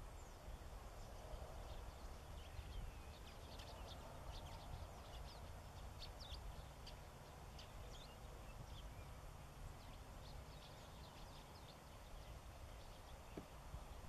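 Faint, busy chatter of many short bird calls from a flock of European starlings, over a steady low outdoor rumble.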